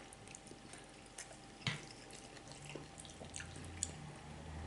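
Faint eating sounds: wet mouth sounds of chewing spaghetti, with a few light, scattered clicks of a fork on the plate.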